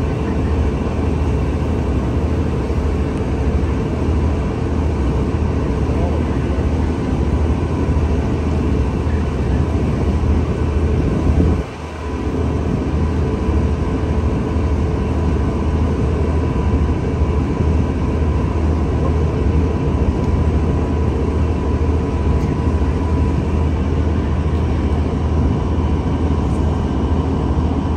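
A steady, heavy low engine rumble with a faint steady hum over it, dipping briefly about twelve seconds in.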